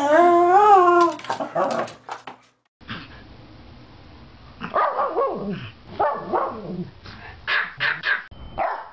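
A whippet's drawn-out, wavering 'talking' howl for the first second or so. After a brief silence, Pomeranians bark in short yaps from about halfway through, several in quick succession near the end.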